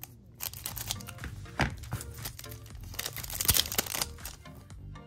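A trading card pack's wrapper being torn open and crinkled, with several sharp rips and rustles, over soft background music.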